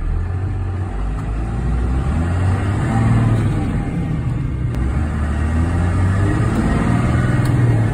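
1992 Dodge W250's 5.9-litre 12-valve Cummins inline-six turbodiesel pulling the truck up through the gears, heard from inside the cab. The engine note climbs in pitch, dips about four seconds in, and climbs again as the truck gathers speed.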